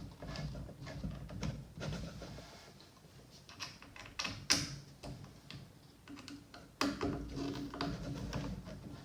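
Light clicks and knocks of plastic RC-car parts being handled as a shock absorber is worked onto its mount, the sharpest click about four and a half seconds in.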